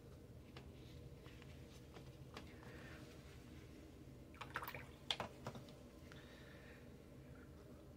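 Faint soft strokes of a watercolour brush on paper, then a brief cluster of clicks and scrapes about halfway through as the brush works paint in a metal watercolour palette tin, over a low steady hum.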